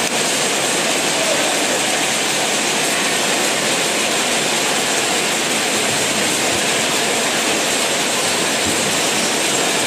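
Steady, even crowd noise in a sports hall, with no single voice or sound standing out.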